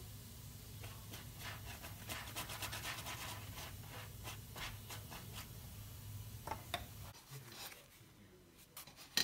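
Silicone pastry brush spreading melted butter over a hot naan in a nonstick frying pan: a quick run of soft, scratchy strokes over a steady low hum. Near the end the hum stops and only a few light taps remain.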